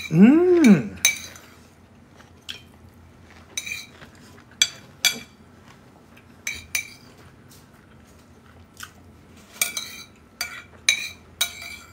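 A metal spoon clinking and scraping against a ceramic bowl as fried rice is scooped up, about a dozen irregular clinks. It opens with a brief hummed 'mm' that rises and falls in pitch, the loudest sound.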